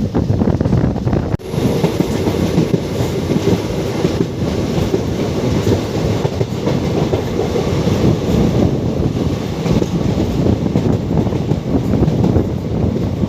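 Express passenger train running at speed, heard from on board: a steady rumble of coaches on the track with wheels clacking over the rails. A brief drop in the sound comes about a second and a half in.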